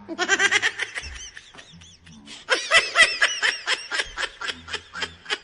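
A person laughing in quick, high-pitched 'ha-ha' pulses: a short run at the start, a pause, then a longer run that lasts until near the end.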